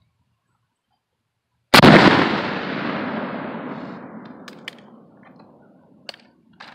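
A single shot from a 12-gauge black-powder shotgun about two seconds in, followed by a long echo that fades away over about four seconds. A few faint clicks come near the end.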